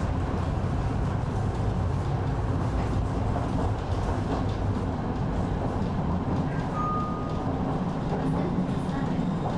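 A moving tram heard from inside the passenger car: a steady rumble of wheels on rails and running gear. A brief thin high tone sounds about seven seconds in.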